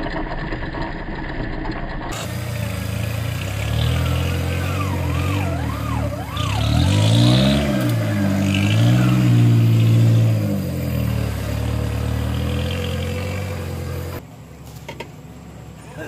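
Off-road 4x4's engine running under load, revving up and down several times in the middle; the sound drops off abruptly near the end.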